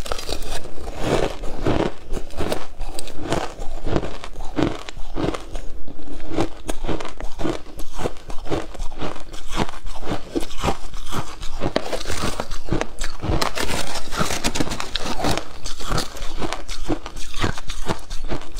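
Close-miked chewing of crushed shaved ice in the mouth: a continuous run of crisp crunches, several a second.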